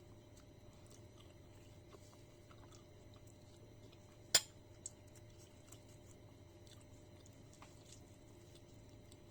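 A person quietly chewing cooked bird, with scattered faint ticks. About four seconds in comes one sharp, loud click, then a smaller one half a second later.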